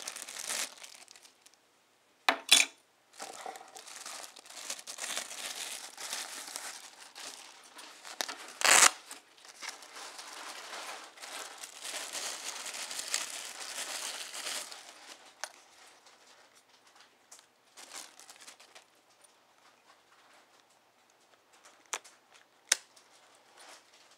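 Clear plastic packaging bags crinkling and rustling as they are handled and pulled open. There is a sharp knock a couple of seconds in and another just before nine seconds. After about fifteen seconds it goes quieter, with only light handling and a couple of small clicks.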